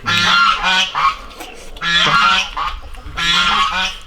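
Geese honking in three loud bouts of repeated calls, about a second apart.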